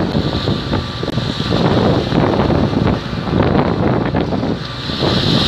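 Wind buffeting the microphone aboard a ship under way at sea, over a steady low rumble of ship engines and the rush of water along the hulls.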